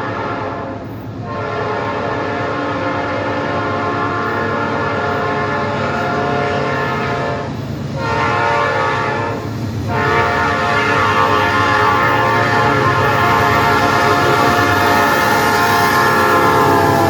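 Norfolk Southern locomotive's air horn blowing the grade-crossing signal. One blast breaks off about a second in, followed by a long blast, a short blast, and a final long blast still sounding at the end, over the low rumble of the moving train.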